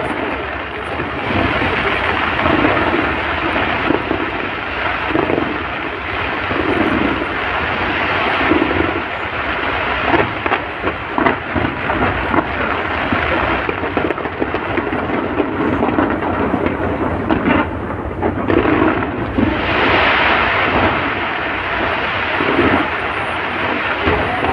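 Fireworks going off in a dense, continuous rumble of booms and crackles.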